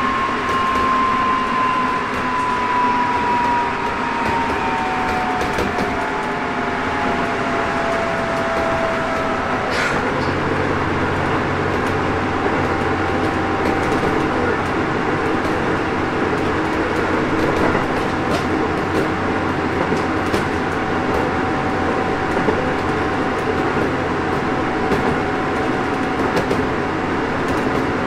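Inside a Hokuso Railway 7300-series electric train with Toyo GTO-VVVF inverter control, running at speed and then slowing for a station. An inverter whine falls in pitch over the first ten seconds. After a click about ten seconds in, a steady low hum and tone set in as the train slows.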